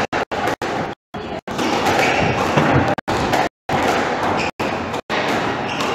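Squash ball thuds and slams off the court walls and floor during a rally, with voices in the background; the audio cuts out briefly several times.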